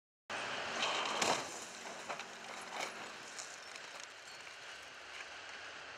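A car crashing against a steel-and-concrete roadside barrier in a crash test: a noisy clatter of crunching, scraping metal with several sharp knocks, loudest just over a second in, then dying away.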